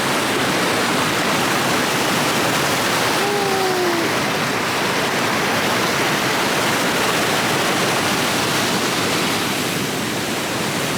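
Waterfall pouring: a loud, steady rush of falling water. A brief faint falling tone sounds about three seconds in.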